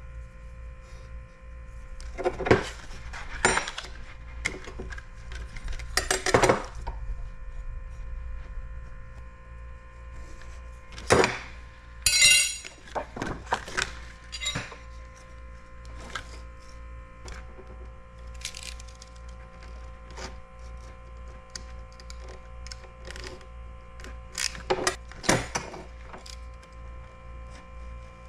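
Scattered clinks and taps of a steel ruler and utility knife being handled against a glass cutting board while a strip of protective film is lined up and cut, over a steady electrical hum.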